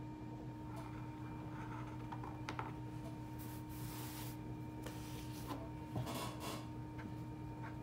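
Marker pen strokes scratching on paper and the sheet and a hand brushing across the tabletop, with a longer sliding rub about halfway through, over a steady low hum.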